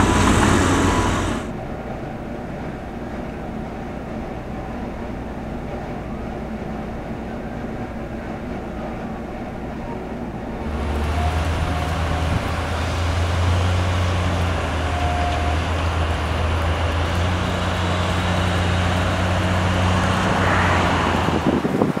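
Steady background noise with a low engine drone, which grows louder about eleven seconds in and holds steady after that.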